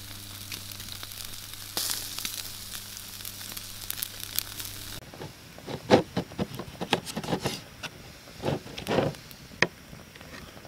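Steaks sizzling on a grill over a crackling campfire. About halfway through, after a cut, a knife and fork saw through the cooked steak and scrape on the plate in a run of separate strokes.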